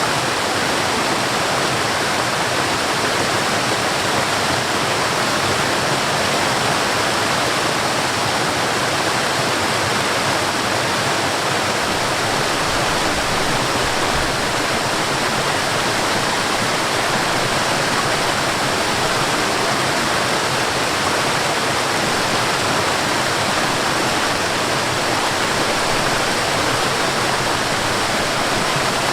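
Small waterfall and stream: water pouring and rushing in a steady, even wash without pauses.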